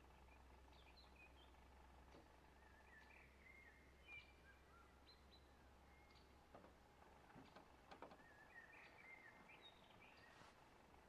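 Near silence with birds chirping faintly now and then, and a few soft clicks about seven to eight seconds in.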